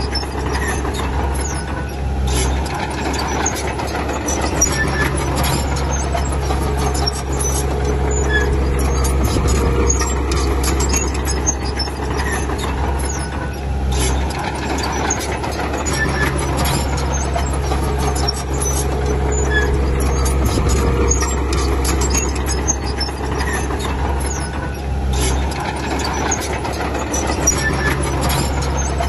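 Bulldozer's diesel engine working under load, its note shifting every six or seven seconds as the load changes, with constant clicking and clanking from its steel tracks.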